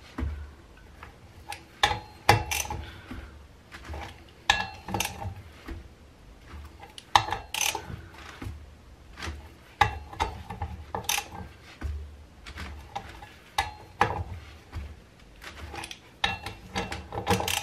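Socket ratchet wrench clicking in short runs as the bolts holding a rear sprocket to a pit bike wheel hub are tightened a little more in turn, with metallic clinks as the socket is moved from bolt to bolt.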